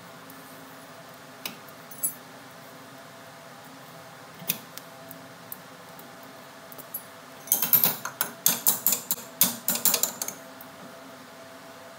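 Metal tools clicking and clinking on the fitting as the air line is disconnected from a truck's front air brake chamber: a few scattered clicks, then a dense run of rapid metallic clicks lasting about three seconds.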